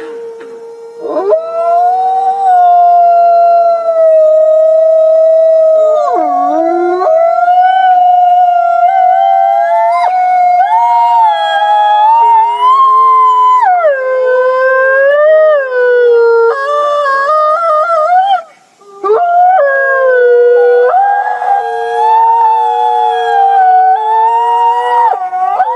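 Gray wolves howling in chorus: several long, overlapping howls at different pitches, gliding up and down, with a brief break about three-quarters through.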